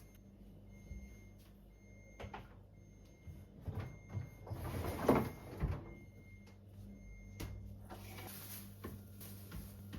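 Refrigerator shelves, drawers and food containers being handled and put away: scattered knocks and clicks, with a longer sliding scrape about four to six seconds in.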